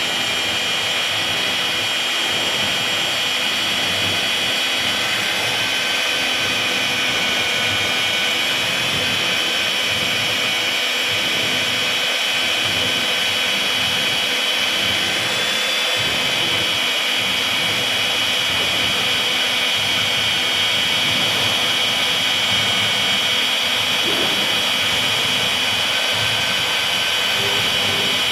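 Electric drill running steadily with a constant high whine while drilling holes.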